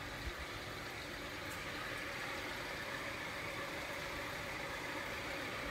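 A steady mechanical hum with a constant hiss, like a motor running at an even speed.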